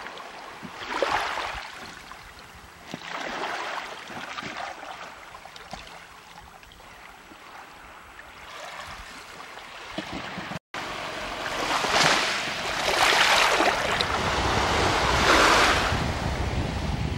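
Small waves washing up on a sandy shore, each wash a soft swell of noise. After a cut about ten seconds in, there is louder surging water and wind noise on the microphone.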